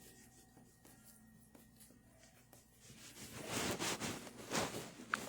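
Faint rubbing and scraping that swells twice in the second half, with a very short high tone near the end.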